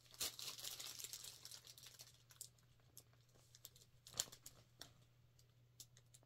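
Small plastic packaging crinkling and rustling as it is handled and opened for about two seconds, followed by a few faint clicks and taps, one sharper a little past the middle.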